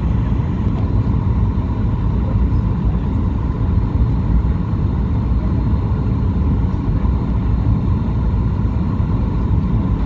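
Steady engine and airflow noise inside an airliner cabin as the plane descends on approach to land. The noise is heavy and low, with a faint steady whine above it.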